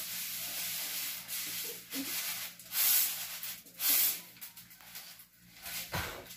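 Dried corn kernels being shaken and tossed in a round woven straw sieve to winnow them by hand. A steady rustling hiss for about the first two seconds, then two louder rushes about a second apart around the middle.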